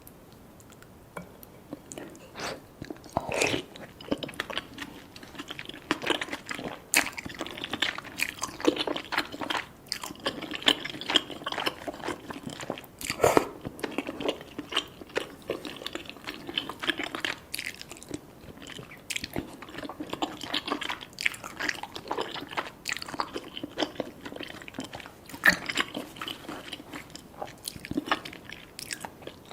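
Close-miked eating sounds: a person biting and chewing cheesy rice cakes and fish balls, with many irregular wet clicks and smacks, starting about two seconds in.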